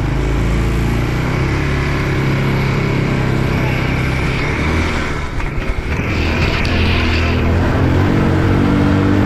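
ATV engine running under load as it climbs a slope, faltering briefly a little past halfway, then picking up again and running harder near the end.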